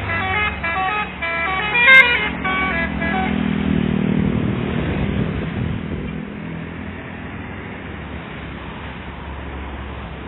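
Bus telolet horn, a multi-tone musical air horn, playing a short tune of stepping notes for about the first three seconds, with a sharp click about two seconds in. A heavy vehicle engine then runs louder for a few seconds before easing to a steady rumble.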